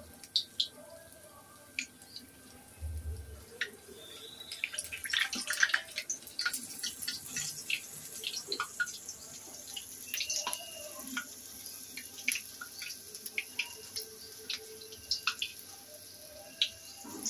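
Medu vada deep-frying in hot oil in an iron kadai: a steady hiss with irregular crackles and pops, busiest from about four to seven seconds in. A short low thump sounds just before three seconds in.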